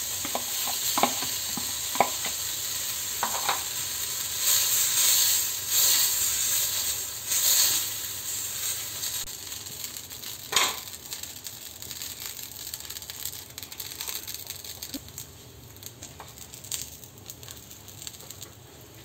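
Chilla batter sizzling on a hot, freshly oiled iron tawa as it is spread with a steel ladle. A few light ladle clicks come in the first four seconds and one more about ten seconds in. The sizzle is loudest in the first several seconds and slowly fades as the batter sets.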